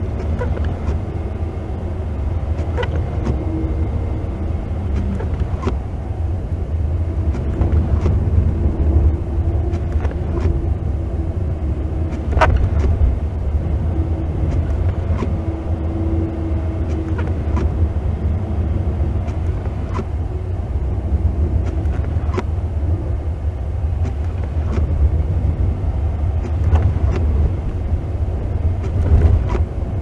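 Car driving slowly on a snow-covered road, heard from inside the cabin: a steady low rumble of tyres and engine, with scattered light knocks.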